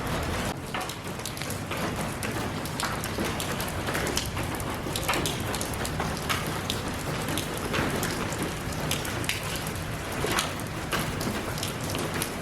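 Steady rain falling, with many individual drops ticking sharply on a nearby surface over the constant hiss.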